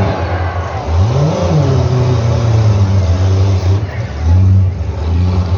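Demolition derby ute engines revving in the arena, with pitch climbing and dropping back about a second in, then running on steadily.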